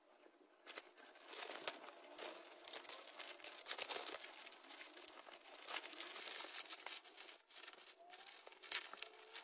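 Plastic bubble wrap crinkling and rustling in dense crackles as it is folded and wrapped around a doll, starting about a second in.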